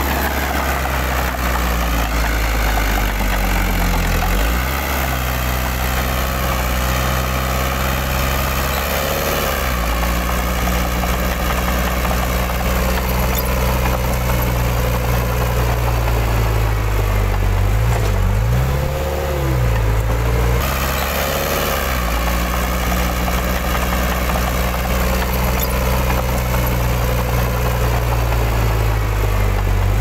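Heavy diesel engine of earthmoving machinery running steadily, its revs dipping and climbing again several times, near the start, around a third of the way in and for a few seconds past the middle.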